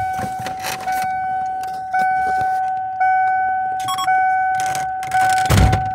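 1993 Ford Explorer's dashboard warning chime, with the ignition key on and the engine off: a steady two-note tone re-struck about once a second, fading between strikes. Near the end comes a heavy low thump, and the chime stops just after.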